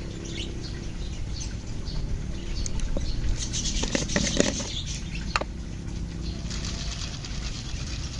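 A plastic jar of crispy fried shallots is handled and opened, a cluster of clicks and rustling about halfway through, then the crisp shallots are shaken out onto a plate with a fine pattering near the end. Birds chirp faintly in the background.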